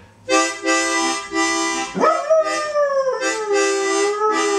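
Harmonica playing short repeated chords. About two seconds in, a dog howls along: its voice swoops sharply up, then slowly slides down into a long held note while the harmonica keeps playing.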